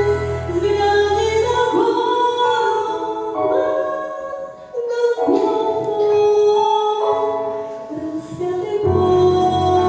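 Christian song: a woman singing a melody with accompaniment; the low bass drops out about two seconds in and returns near the end.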